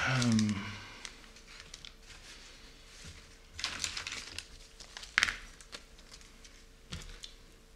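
Plastic parts bag crinkling as it is handled, with a sharp click about five seconds in.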